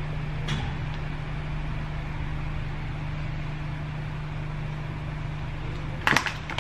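Steady low machine hum, with a faint click about half a second in and a brief clatter of small items being handled on a counter near the end.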